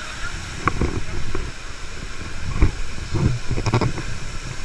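Steady rushing of a waterfall, with irregular low thumps and a few knocks on the microphone.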